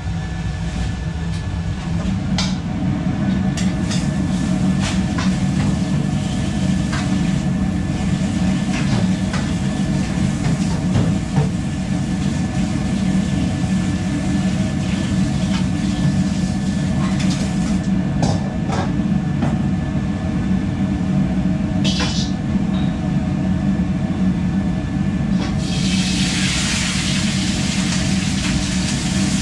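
Steady low roar of a commercial kitchen's gas wok burners and extraction hood, with scattered clicks and knocks of metal utensils on steel woks. About 26 seconds in, a loud hiss starts as a hot wok sends up steam.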